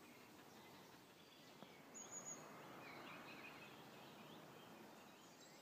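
Faint wild birdsong: scattered high chirps and a short trill about two seconds in, over a low steady hiss of outdoor ambience.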